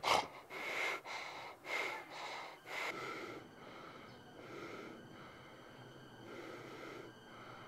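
A person breathing in short, noisy breaths, several in quick succession over the first three seconds, then fainter and slower, about one a second.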